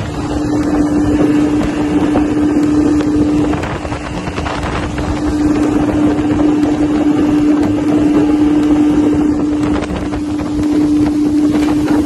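Bass boat's outboard motor running steadily at speed, a steady hum, with wind buffeting the microphone and the rush of water off the hull.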